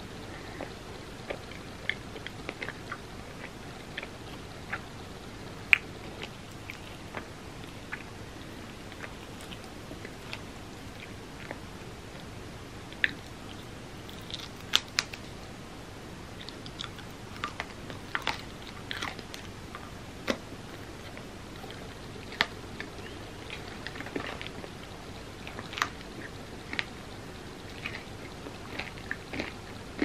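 A person chewing and eating a chocolate-covered ice cream sundae, with irregular sharp mouth clicks from chewing.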